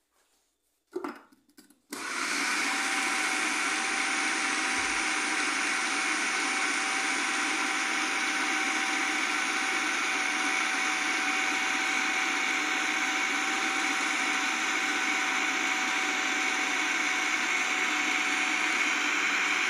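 Electric food processor motor running steadily with an even whine, chopping and mixing a kibe mixture of bulgur wheat and ground beef. It starts about two seconds in, just after a few short knocks.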